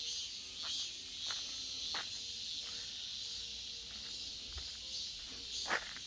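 Insects chirping in a steady high chorus, with footsteps on a dirt path about every half second to second and one sharper click near the end.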